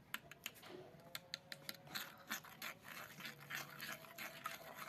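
A spoon stirring a runny mix of milk, oil, egg, yeast and sugar in a glazed earthenware bowl. It makes quiet, irregular clicks and scrapes against the bowl, several a second.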